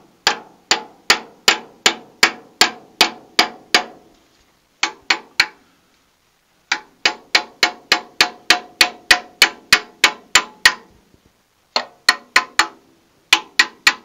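A hammer striking steel in quick runs of even blows, about three a second, each with a short metallic ring, broken by brief pauses. It is the work of breaking loose a rusted nut on the gas-tank clamp of a 1924 Fordson Model F tractor.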